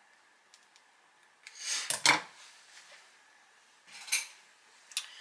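Metal scissors being handled and snipping at fabric, in short clattering bursts about two seconds in and again about four seconds in, with a last click near the end.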